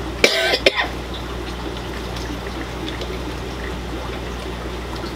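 Water trickling steadily over a constant low hum, with a short loud burst about half a second in.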